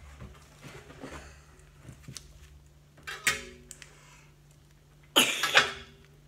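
Small clicks and rustles of a plastic toy capsule and its wrapper being handled, broken by two loud, short wordless cries from a young child, about three seconds in and again, louder, about five seconds in.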